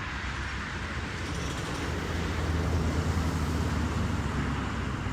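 Street traffic: a steady wash of passing road vehicles, with a low engine rumble that swells as a heavier vehicle, such as a bus or truck, draws close about two seconds in.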